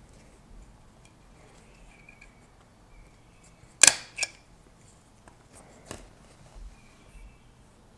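Small handheld stapler squeezed and fired through the folded vacuum-cleaner-bag material of a mask, a sharp double clack about four seconds in. A smaller click follows about two seconds later, over light handling rustle of the paper.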